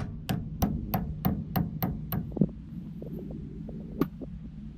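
Hammer blows, about three a second, knocking a steel shaft out of an MGA 1600's front suspension as the shaft starts to move. The steady blows stop a little past two seconds in, followed by a few light knocks and one more hard strike near the end.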